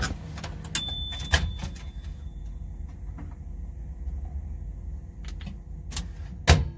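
Microwave door opened with a click and a high beep-like tone about a second in, then light clicks and clatter of a food container and fork. Near the end comes a single loud clunk as the microwave door is shut.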